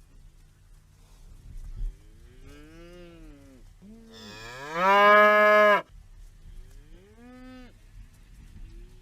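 Cattle mooing: three moos in a row, a fainter rising-and-falling one, then a long loud one that swoops up at its start, then a shorter one.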